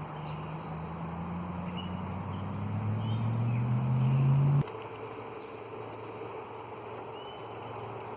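A steady high-pitched insect trill with a few short bird chirps over it. For the first four and a half seconds a low hum rises in pitch and grows louder, then cuts off suddenly.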